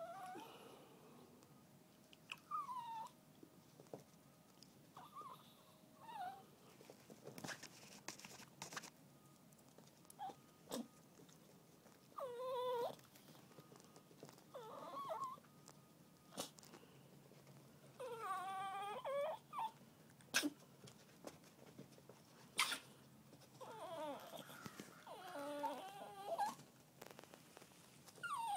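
Chihuahuas whining in short, high whimpers that bend up and down, coming on and off, typical of a dog begging. A few short, sharp clicks or snorts fall between the whines, the loudest about two thirds of the way through.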